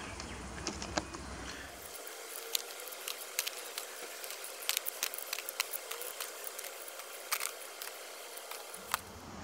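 Scattered light metallic clicks and taps of small screws being handled with tweezers and set into the holes of an aluminium module plate, over a faint steady hiss.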